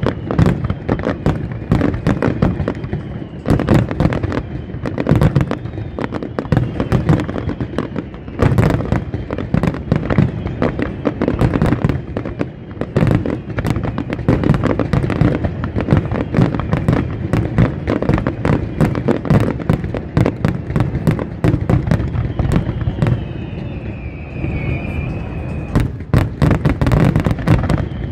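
Fireworks display: a dense, unbroken run of bangs and crackling bursts, some louder than others.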